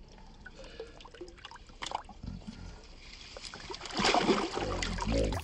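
Water trickling and lapping around hands holding a northern pike in the shallows, with small drips and ticks. From about four seconds in comes a louder stretch of splashing and sloshing as the pike is released.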